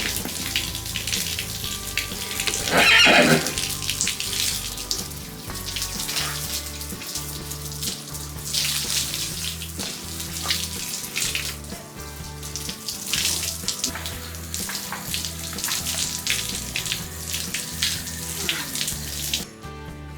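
Running water spraying and splashing while a young horse is bathed, with a loud horse whinny about three seconds in. The water cuts off suddenly near the end.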